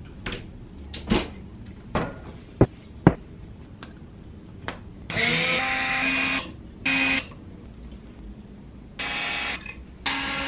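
A few sharp clicks and knocks, then a small cordless drill/driver runs in several short bursts of a steady whine, backing screws out of clear acrylic wall shelves.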